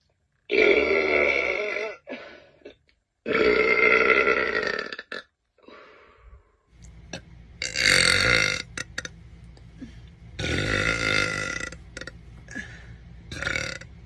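A woman letting out five long burps, most over a second long, one after another with short gaps; the last is short. From about halfway on a low steady hum sits under them.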